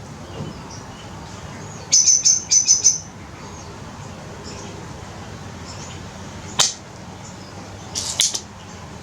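A bird chirping in two short bursts of rapid high notes, with a single sharp click between them.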